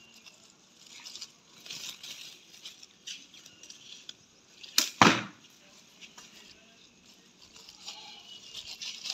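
A single loud whoosh about five seconds in, sweeping downward in pitch, over faint intermittent rustling.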